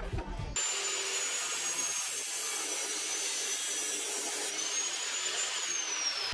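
Abrasive cut-off saw grinding through a flat steel bar: a dense grinding hiss under a high, steady wheel whine that starts suddenly about half a second in. The whine's pitch sags slightly as the wheel bites, then rises and drops again near the end.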